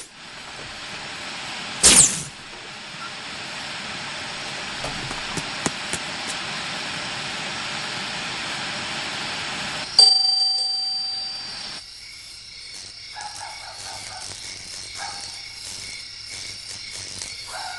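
A steady hiss, with one loud thump about two seconds in. About ten seconds in, a sudden sharp strike rings out and fades, leaving a faint low hum.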